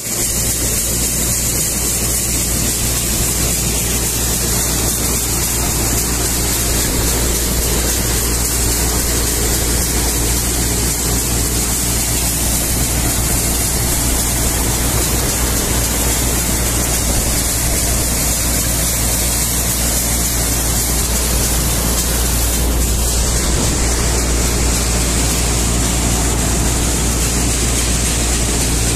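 Chickpea thresher running steadily: a loud, even mechanical drone with a hiss over it as the machine threshes and throws out grain.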